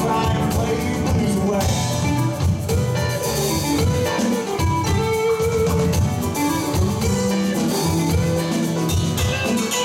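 A live band playing an instrumental passage with no vocals: electric guitar out front over bass guitar, drums and keyboard.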